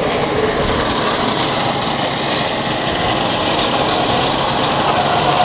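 Small go-kart engines running in a steady drone.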